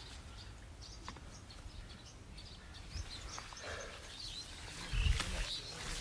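Rustling and crackling of cucumber vines and leaves as cucumbers are picked by hand. About five seconds in there is a louder low rumbling thump as the microphone brushes into the foliage.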